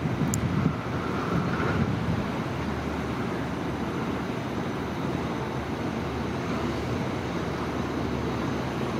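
Steady low rumble of an inland motor cargo ship's engine as the ship passes along the river.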